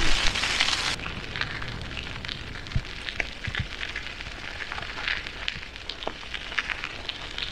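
Bicycle tyres rolling on a gravel path with a dense hiss, cutting off sharply about a second in to a quieter crackling haze with scattered small clicks.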